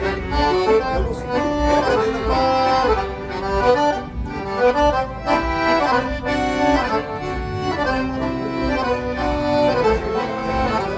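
Accordion playing a waltz: a flowing melody over a steady pulsing bass accompaniment.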